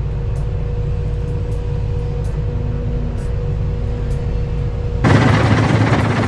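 A heavy excavation machine's diesel engine running steadily with a low rumble. About five seconds in, the sound abruptly changes to a louder rushing noise.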